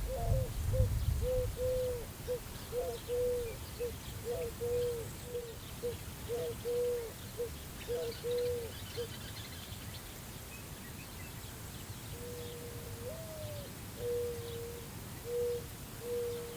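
Weathered swing creaking in the breeze: a run of short squeaks at nearly the same pitch, about two a second, for the first nine seconds, then a few longer squeaks later, one of them rising. A gust of wind rumbles at the start.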